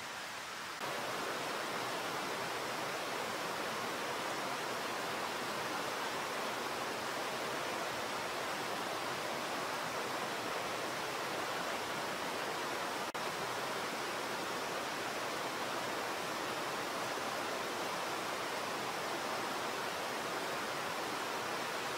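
Steady, even rushing hiss with no distinct events, a little louder from about a second in.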